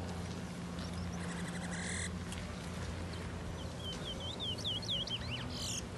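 Caged songbird singing: a buzzy note about two seconds in, then from about halfway a quick run of short, high whistled notes, over a steady low hum.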